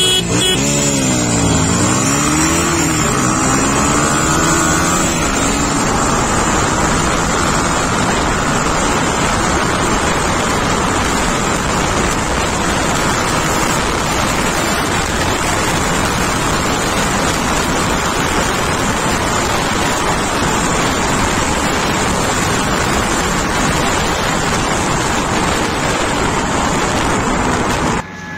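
Yamaha MT-15's single-cylinder engine pulling hard from a standing start, its pitch climbing and dropping at each upshift in the first few seconds. Then wind rushing over the onboard microphone at speed drowns out the engine. The sound drops suddenly near the end.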